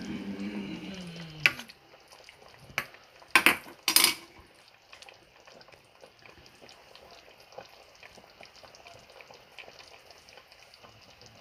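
Pot of maeuntang, Korean spicy fish stew, simmering with a faint steady bubbling crackle. A plastic spatula stirring it knocks sharply against the pot four times in the first four seconds.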